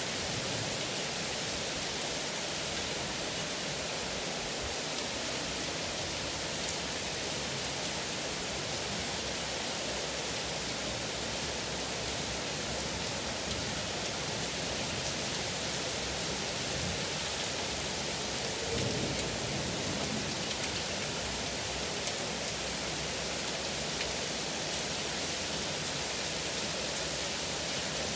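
Heavy rain pouring down in a dense, steady hiss of a torrential downpour.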